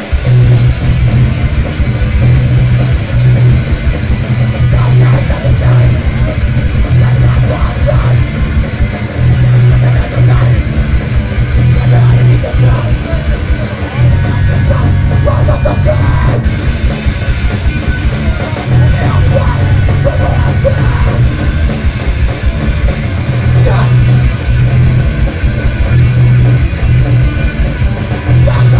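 Live rock band playing loud and heavy: electric guitar, bass guitar and drum kit, with a chunky repeating bass line.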